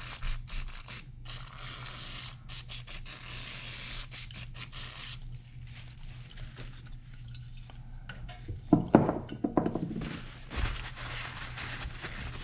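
Scraping and rubbing on the chainsaw's engine parts as they are cleaned up after the old piston is taken out, dense for about five seconds and then quieter. About nine seconds in there is a short, louder pitched squeak.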